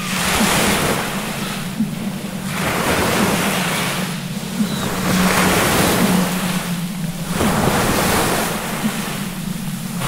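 Ocean waves surging in repeated swells, each wash of surf rising and falling away every two to three seconds, over a steady low drone.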